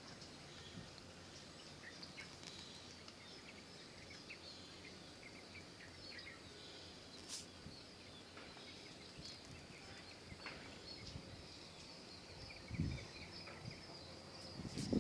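Faint outdoor chorus of many short, high chirps, steady throughout, with two brief low thumps near the end.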